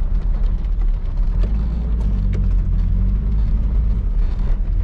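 Pickup truck driving on a dirt mountain road, heard from inside the cab: a steady low rumble of engine and tyres with a few faint knocks.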